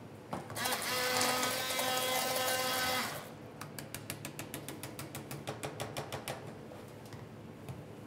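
Hand-held immersion blender blitzing a sauce in a saucepan: a steady motor whine that starts just under half a second in and cuts off after about three seconds. Then a run of quick light clicks, several a second, for about three seconds.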